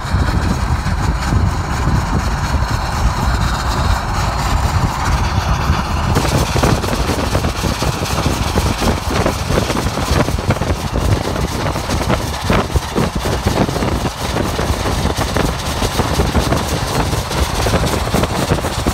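Steady wind and road rumble from a car driving at speed, with a dense hiss that grows louder about six seconds in.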